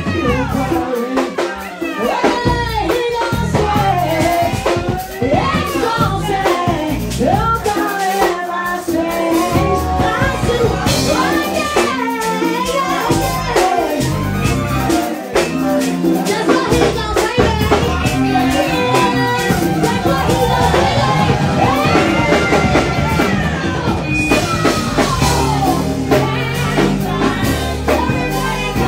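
A live band playing a song: a singer's voice over a drum kit and other instruments.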